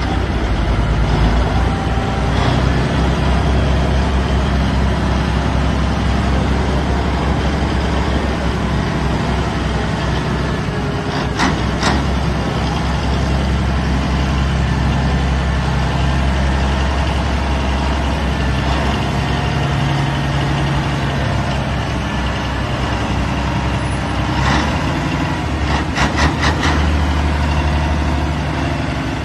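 Heavy diesel engine running steadily at a constant speed, with a few short sharp knocks about eleven seconds in and again near the end.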